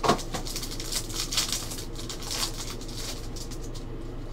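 Plastic wrapper of a trading-card pack crinkling and rustling as it is handled, a run of quick irregular crackles.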